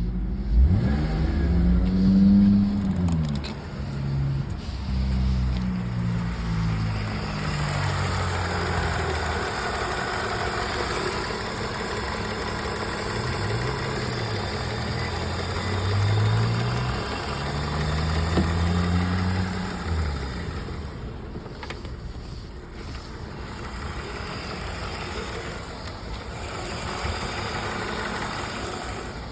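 Car engine being revved in a series of blips, its pitch rising and falling, with steadier running between them; the engine is being checked for a misfire.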